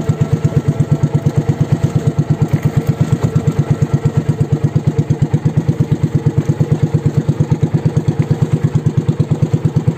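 Small engine of an outrigger fishing boat running steadily, with a fast, even pulsing beat.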